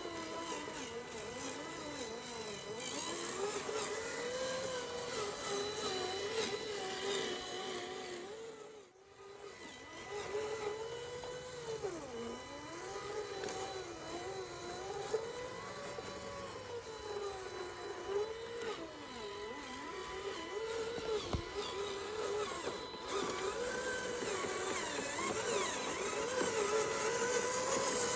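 Small electric motors of radio-controlled model vehicles running with a whine whose pitch rises and falls with the throttle. The sound cuts out briefly about nine seconds in.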